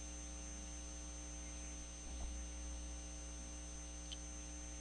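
Steady electrical mains hum with faint hiss, picked up on the recording's microphone line. There is a single faint click about four seconds in.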